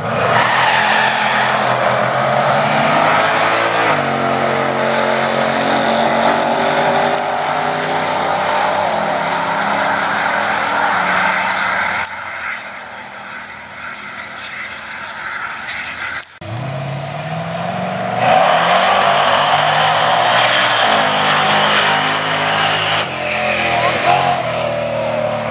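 Drag cars launching off the line at full throttle, engines rising in pitch and dropping back at each gear shift, the first about 4 seconds in. After a sudden break about 16 seconds in, a pickup drag truck launches and climbs hard through its gears.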